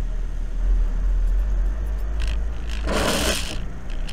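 Inside a car driving on a wet road: a steady low rumble from the engine and tyres, with one short swishing scrape about three seconds in.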